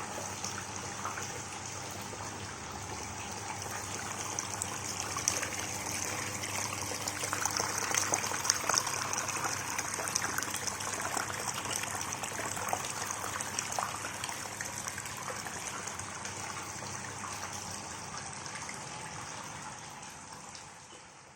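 Water trickling and splashing, a small waterfall running over rock in a paludarium, with many small drips and splashes; it fades out at the end.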